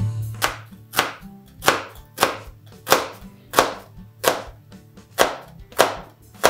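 Santoku knife slicing a red onion thinly on a plastic cutting board: about ten sharp, even knife strikes against the board, roughly one every two-thirds of a second.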